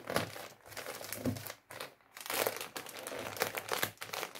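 Plastic mailing bag crinkling in irregular bursts as hands fold and press it closed around a packed parcel.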